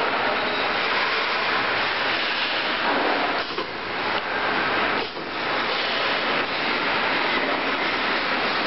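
Steady, even hiss of workshop machinery, briefly dipping twice near the middle.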